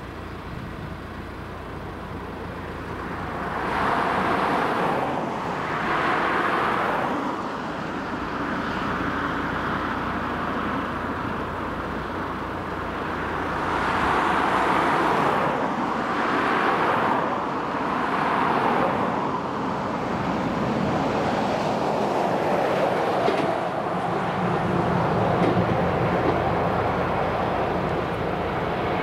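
Distant jet airliner engines at the airport, a continuous rushing roar that swells and fades several times.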